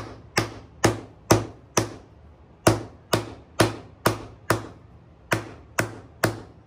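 Nylon hammer striking an annealed metal disc on a leather sandbag, steady sharp blows about two a second with a brief pause about two seconds in, each with a short ring: the disc being sunk into a dish shape.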